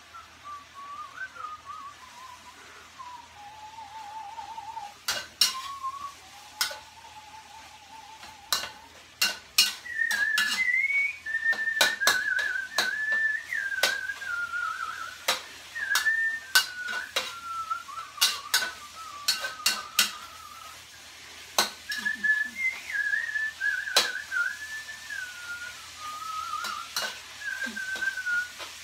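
A person whistling a wavering tune, higher and louder from about a third of the way in, over the sharp clanks and scrapes of a metal spatula against a wok during stir-frying.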